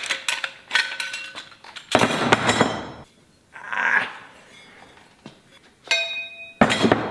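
Metal pipe-cap pieces clinking and knocking together as they are handled and fitted one into the other. Several sharp knocks, a couple of them ringing briefly, with a stretch of scraping handling noise about two seconds in.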